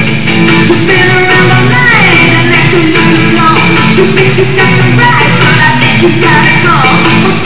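Loud rock-and-roll music with guitar and some singing, thin and without deep bass, with falling pitch slides now and then.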